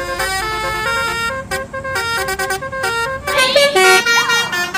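Basuri telolet bus horn playing its multi-note melody, a quick run of short tooting notes stepping up and down in pitch. A brief rising-and-falling glide joins in about three and a half seconds in.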